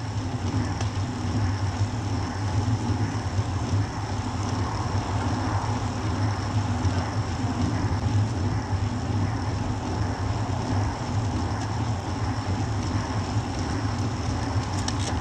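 Steady wind rumble on the microphone of an action camera mounted on a road bike moving at about 20 km/h, mixed with the rolling noise of tyres on asphalt.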